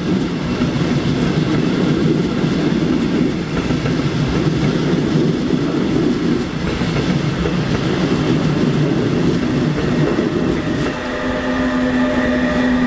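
A passenger train rolling along a platform track with a steady wheel-and-rail rumble. About 11 s in, a steady humming whine with several tones sets in.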